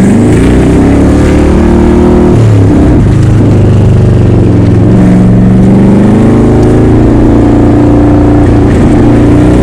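Loud motor-vehicle engine noise, its pitch rising and falling as the engines rev.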